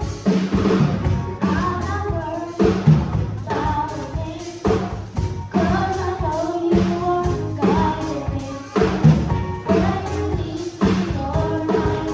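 Children's gospel choir singing with live band backing, a drum kit keeping a steady beat over a bass line.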